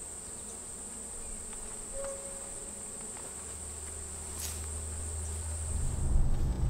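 A steady, high-pitched trill of crickets in the grass, which stops about six seconds in. A louder low rumble of a car's cabin on the road then takes over.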